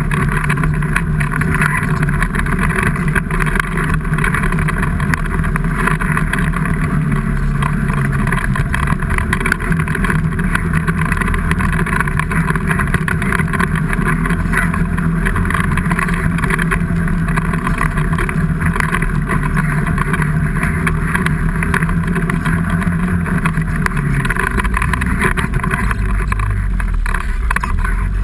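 A vehicle engine running steadily at a fairly constant pitch, which settles lower about 24 seconds in.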